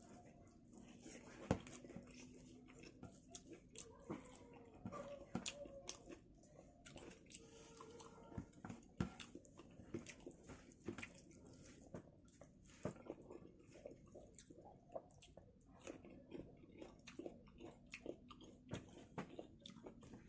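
Close-miked eating sounds of someone chewing and biting chilli chicken with rice: a steady run of short clicks and smacks from the mouth.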